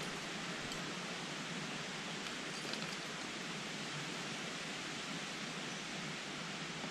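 Steady, even hiss of outdoor background noise.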